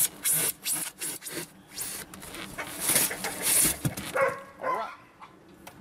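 A knife sawing back and forth through a polystyrene foam cooler lid, making irregular rasping strokes about two or three a second. The strokes die away about four seconds in.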